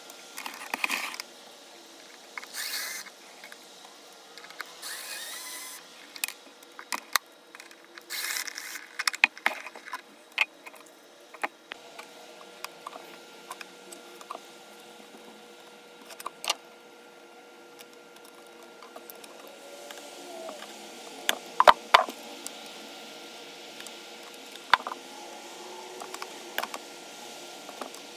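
A DeWalt cordless screwdriver runs in several short bursts in the first ten seconds or so, backing screws out of the wooden chest's metal hardware. After that come scattered sharp clicks and taps of metal on wood as a scraper blade works at a metal plate fixed in the lid.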